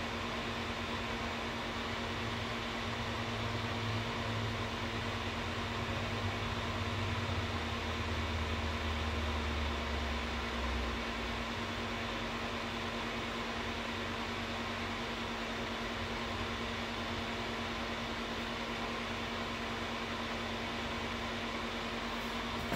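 Steady whirring hum of a fan running, with a low rumble underneath that swells over the first several seconds and fades out about halfway through.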